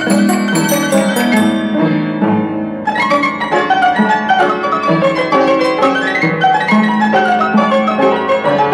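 Madrid organillo, a hand-cranked barrel piano, playing a chotis: quick piano-like notes over a repeating bass. A bright, jingling top line comes back in about three seconds in.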